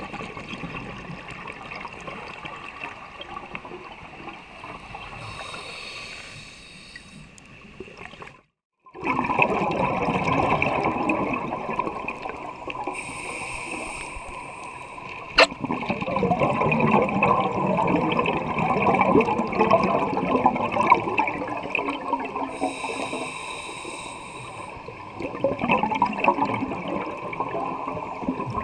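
Scuba diver's regulator breathing underwater: a short hiss on each inhale, then a long burst of bubbling exhaust, in a cycle that repeats about every eight to ten seconds. A sharp click about halfway through.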